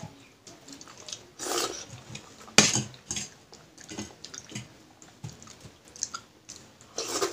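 Eating by hand from stainless steel bowls: fingers scraping and tapping against a steel bowl, with chewing and mouth sounds, a scatter of small clicks and a few louder bursts, the sharpest about two and a half seconds in.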